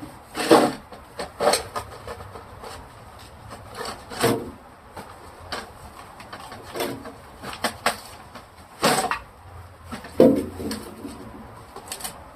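Irregular scrubbing and rubbing strokes from wiping down plastic refrigerator parts. About a dozen short, scratchy swipes come at uneven intervals, with the loudest near the middle and near the end.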